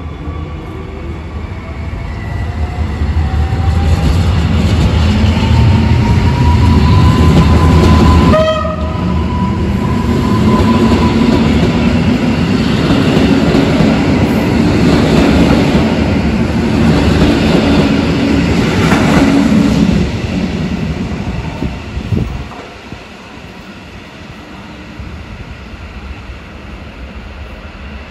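Two coupled EN57AL electric multiple units pulling away: the traction drive's whine rises steadily in pitch over the first eight seconds as they accelerate, then the cars rumble loudly past, the noise dropping away about twenty seconds in.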